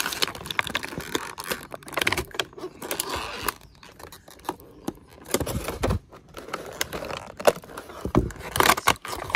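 Clear plastic packaging crinkling and crackling in the hands as an action figure is worked out of its plastic bag and blister tray, in irregular rustles and snaps, with a few dull knocks.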